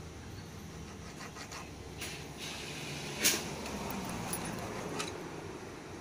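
Light metallic clinks of a motorcycle front-wheel axle, spacer sleeve and rod being handled, with one sharp clink about three seconds in, over a low steady background hum.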